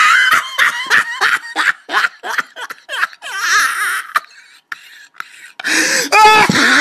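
Person laughing hard: a fast run of short, high-pitched 'ha-ha' pulses that trails off about four seconds in. Near the end, a loud high-pitched voiced cry.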